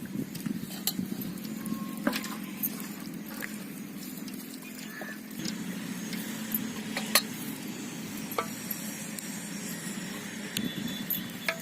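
Cooking oil heating in a pot on a lit stove: a steady low rumble with scattered faint clicks and ticks.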